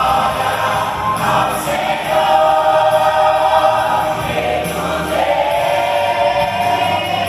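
Mixed teenage choir singing a gospel worship song in long held notes, the voices moving to a new chord about a second in and again about five seconds in.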